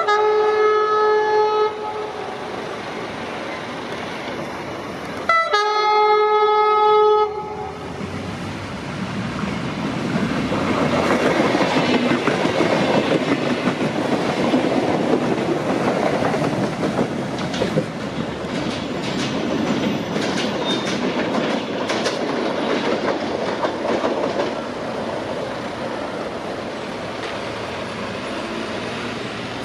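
UT-440 electric train sounding its horn in two long blasts, then passing at speed with the rushing rumble and clatter of its wheels on the rails. The rumble is loudest a few seconds after it starts and then eases off.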